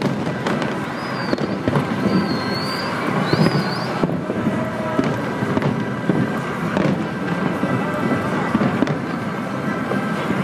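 Fireworks display: a continuous dense rumble of booms and crackle with frequent sharp bangs throughout.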